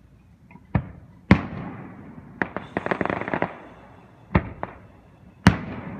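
Fireworks display: aerial shells bursting in a series of about six sharp booms, each trailing off in a rolling echo, with a rapid crackling run in the middle. The loudest booms come a little after the start and near the end.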